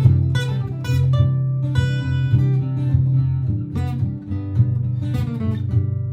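Martin GPCPA4 acoustic-electric guitar played through a looper pedal: a steady looped low part sustains underneath while single plucked notes are improvised over it.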